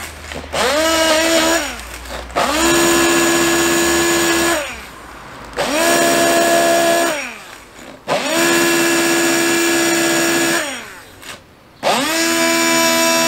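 Hand-held electric stick blender run in short pulses, about five in all. Each pulse is a motor whine that rises as it spins up, holds steady for one to two seconds, then falls away as it stops. It is chopping fresh plantain leaves into a pulp.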